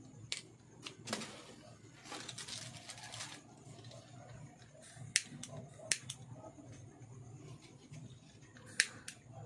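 Scattered sharp clicks and snips of pliers working thin wire on a ferrite-ring coil assembly, with a stretch of rustling about two seconds in.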